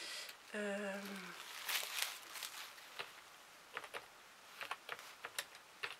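Light, irregular clicks and taps, like typing on a keyboard, after a brief murmured voice and a short rustle near the start.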